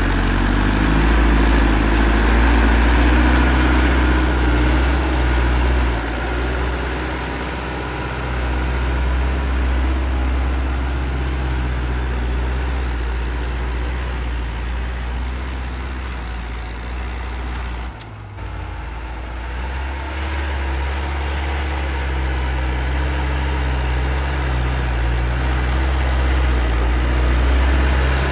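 Massey Ferguson 385 tractor's diesel engine running steadily under load as it pulls a tine cultivator through the soil, with a brief dip in level about two-thirds of the way through.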